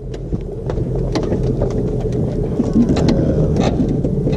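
Side-by-side UTV engine idling steadily, with scattered short clicks and knocks on top.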